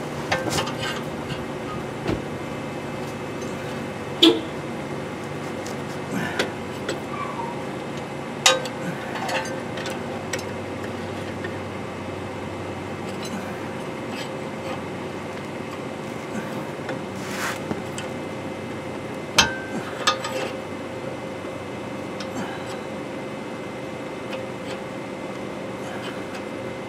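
Scattered sharp metal clinks and knocks as a C-clamp is set and worked on a steel axle truss fitted over a rear axle housing, over a steady background hum.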